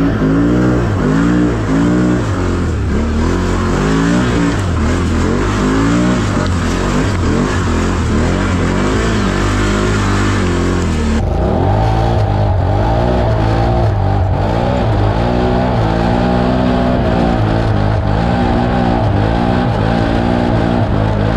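Can-Am ATV's Rotax V-twin engine revving up and down under load, about once a second, as it climbs a steep, leaf-covered slope. The sound changes abruptly about halfway through, and a steadier tone rides above the engine after that.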